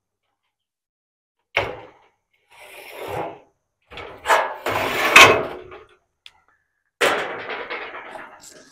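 Sheet-metal bed panel being handled and fitted by hand: a knock, a scraping rub, then several knocks and bangs, the loudest about five seconds in, each trailing off.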